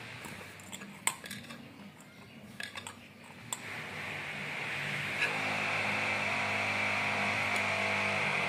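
Hands rubbing and mixing crumbly flour-and-sugar dough in a metal bowl, with a few light clinks against the bowl. About halfway in, a steady hum comes up and holds.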